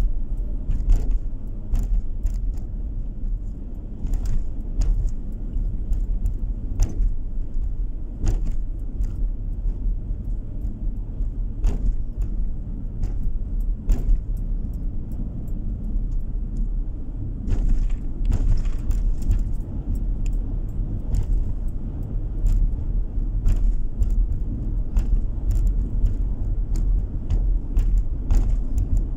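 Steady low road and engine rumble heard from inside a moving car's cabin, with frequent light, irregular clicks and rattles.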